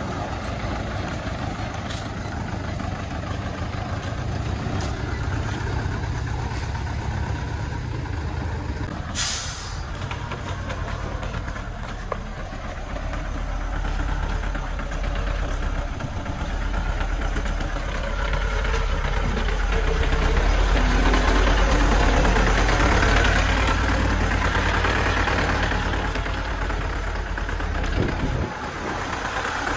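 Diesel engines of small loaded dump trucks running as the trucks manoeuvre slowly, growing louder past the middle as one pulls under load. A short hiss of air about nine seconds in.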